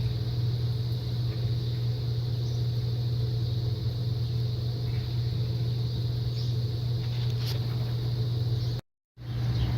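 A steady low hum with no change in pitch or level, cutting out completely for a moment near the end.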